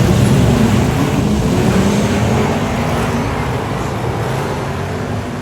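Speedway race car engines running on the track, loud and steady, then slowly fading as the cars move away.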